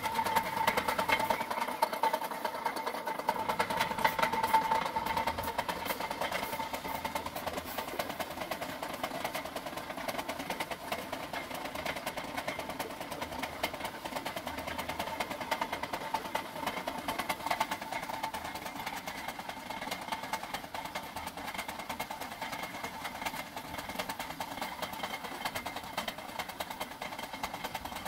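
Motor-driven flywheel generator rig running steadily: a constant whine with a fast, even rattle, a little louder in the first several seconds.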